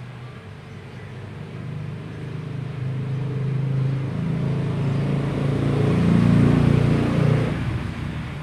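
A motor vehicle's engine running nearby, growing louder to a peak about six seconds in and then fading, as of a vehicle passing on the street.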